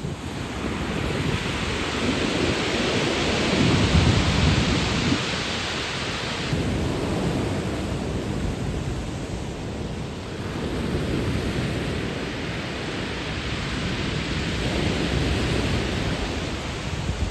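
Ocean surf on a pebble beach: waves breaking and washing in as a continuous rush, swelling loudest about four seconds in and easing and building again after.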